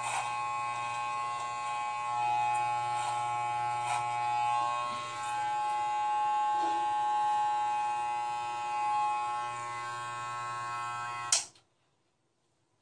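Corded electric hair clippers running steadily as they shave long hair off the scalp, switched off with a click near the end.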